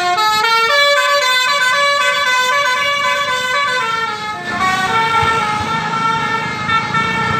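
Basuri telolet horn on a tour bus: a multi-trumpet air horn playing a tune, quick stepping notes in the first second, then longer held notes, switching to a new held chord about four and a half seconds in. The bus's engine and road noise rise underneath near the end.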